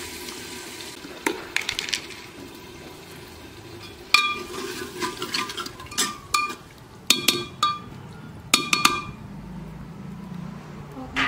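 Water poured into an earthen cooking pot, then a steel ladle stirring potatoes and clinking against the pot, with groups of sharp, ringing clinks from about four seconds in.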